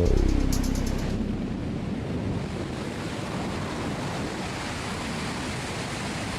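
Steady wind rushing over the microphone, an even hiss and rumble, as intro music fades out in the first second.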